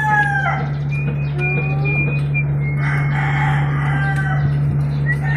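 A rooster's crow tails off about half a second in, then fainter bird calls come and go over a steady low hum.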